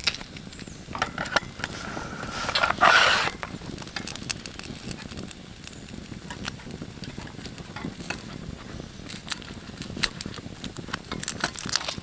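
Wood fire crackling in a small folding stove, with scattered sharp pops, mixed with the scraping of a pocket knife peeling a vegetable. A louder scrape comes about three seconds in.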